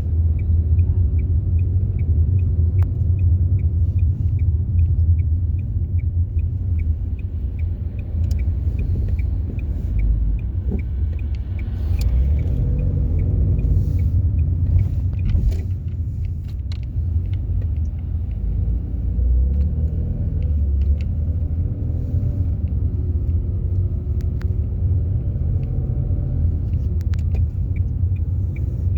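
Car driving, heard from inside: a steady low rumble of road and engine, with the engine pitch rising and falling as the car speeds up a few times mid-way. A regular ticking, about two a second, runs through the first third and comes back near the end.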